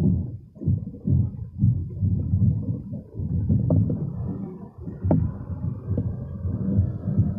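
Wind buffeting a phone microphone: an uneven low rumble that gusts up and down, with a few faint clicks.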